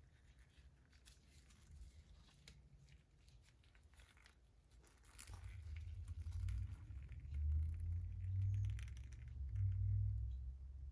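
Faint crinkling and rustling of gloved hands handling and turning a small model engine. From about five seconds in, a louder low rumble takes over, swelling and fading.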